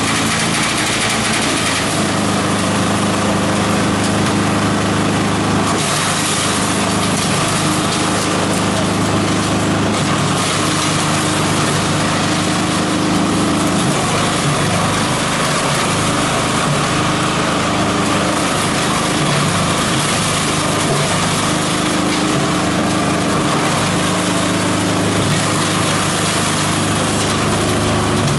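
Multi-purpose chopper-shredder machine running steadily while green plant material is fed in and shredded: a dense, even mechanical noise with a steady low hum underneath.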